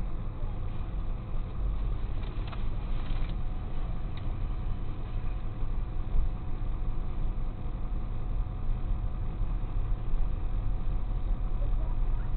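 Tow truck's engine idling steadily, a low rumble heard from inside the cab.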